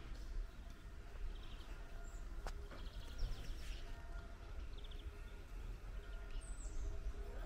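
Small birds chirping in short rapid trills a few times, with one high falling call near the end, over a low steady outdoor rumble.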